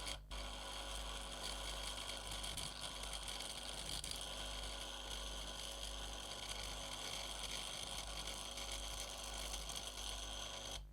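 Soviet Arkograf electric arc engraver buzzing and crackling as its vibrating tip makes and breaks contact with a steel tool, arcing to burn a label into the metal. It switches on suddenly at the start and cuts off just before the end.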